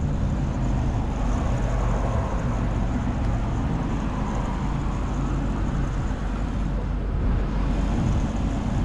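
Diesel pump nozzle filling a truck's fuel tank: a steady rush of fuel running into the tank, with a low steady hum underneath.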